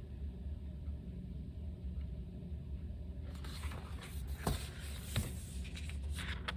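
Steady low background rumble, with faint rustling coming in about halfway through and two soft knocks.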